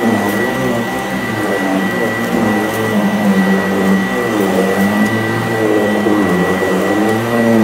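Sanitaire SC899 commercial upright vacuum running over a carpet mat: a steady high whine over a motor hum whose pitch wavers as it is pushed back and forth, with faint ticks and crunching from salt grains being sucked up.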